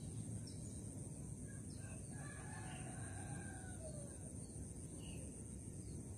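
A rooster crowing once, faint, a drawn-out call of about two seconds that drops in pitch at the end, over a steady low rumble and a constant high hiss, with a few short bird chirps.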